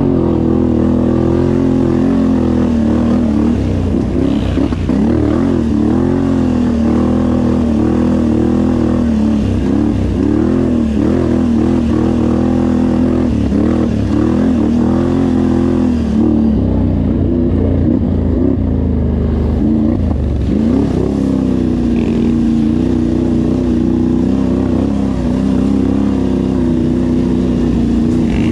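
Off-road vehicle engine running loud and continuously during trail riding. Its pitch rises and falls with the throttle through much of the ride, then holds steadier from about two-thirds of the way in.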